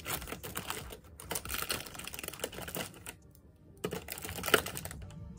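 Makeup products being handled and picked up on a table: quick irregular clicks and taps in two bursts with a short pause between, and one sharper knock near the end.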